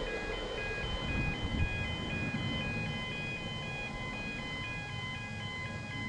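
Class 37 diesel locomotive's English Electric V12 engine rumbling as it pulls away round a curve. A simple electronic tune of short high beeping notes plays over it.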